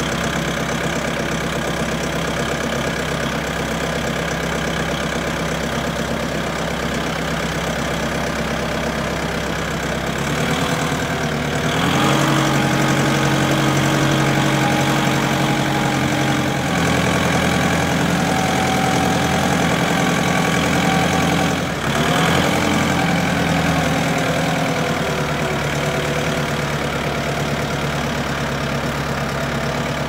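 2020 Massey Ferguson compact tractor's diesel engine running under way. The revs rise about ten seconds in and hold higher, drop back, dip and pick up again briefly, then ease down near the end.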